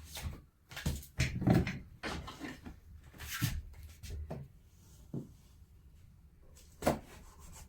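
A string of knocks and clatters from objects being handled, densest and loudest in the first few seconds, with another sharp knock near the end.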